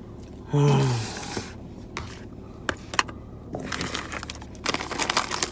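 Clear plastic salad container and black plastic tray being handled, with scattered clicks and then dense crinkling and crackling of the plastic near the end. A brief falling vocal sound comes about half a second in.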